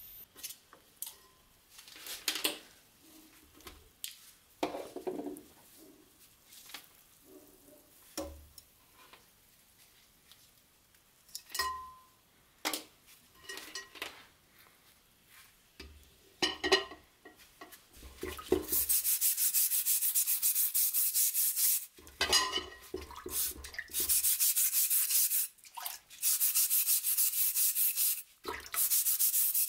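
Scattered clinks and drips as the wet knife is handled over a bowl of water. About two-thirds of the way in, a brush starts scrubbing the blade hard in quick back-and-forth strokes, with a few short pauses, working off the rust loosened by electrolysis.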